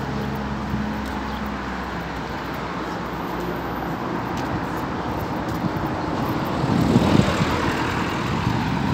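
Road traffic: a vehicle's engine drone fades away over the first couple of seconds, then a car passes close by about seven seconds in.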